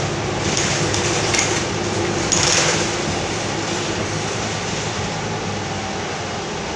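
Cabin noise of a New Flyer XDE40 diesel-electric hybrid bus under way: a steady drivetrain hum with road noise. A few short hisses come in the first three seconds.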